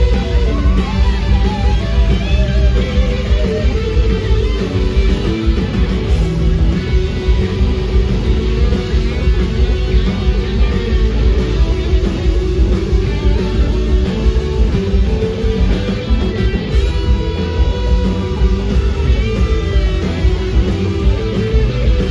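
Live blues-rock band playing loud: two electric guitars play bending lead lines through amplifiers over drums and a heavy low end.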